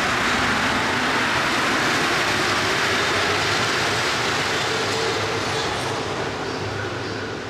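A Paris Métro MP59 rubber-tyred train pulling out of the station, its tyres and running gear making a steady rushing noise. The sound fades from about five seconds in as the last car leaves the platform.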